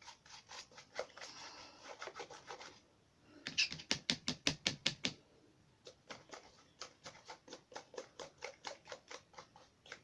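A nearly dry paintbrush scrubbed quickly back and forth over the textured surface of a model boat while dry brushing: rapid scratchy bristle strokes, about seven a second, in two bursts with softer scratching before them.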